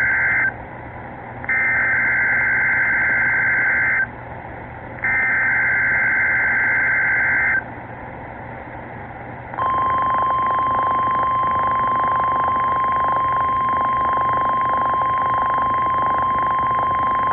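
NOAA Weather Radio weekly test signal from station WXK-49, over receiver hiss. It begins with the end of one burst of SAME header data and two more bursts, a harsh two-tone digital warble each about two and a half seconds long with a second's pause between. Then, about two seconds later, comes the long steady warning alarm tone that sets off weather radios.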